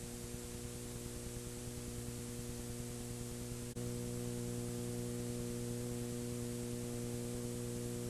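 Steady electrical mains hum over hiss, with no programme sound. A single click comes a little before halfway, after which the hum is slightly louder.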